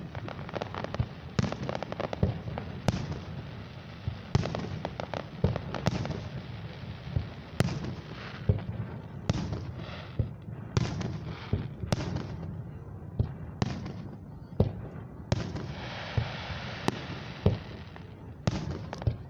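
Aerial fireworks display: a steady run of sharp booming bursts, often several in quick succession, with crackling shells between them.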